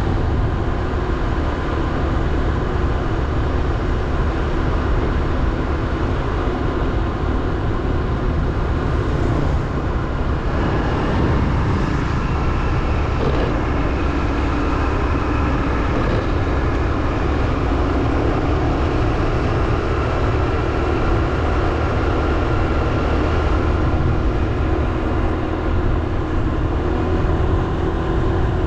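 Motorbike engine running steadily while riding, with heavy road and wind rumble; its engine note shifts a little around ten to thirteen seconds in.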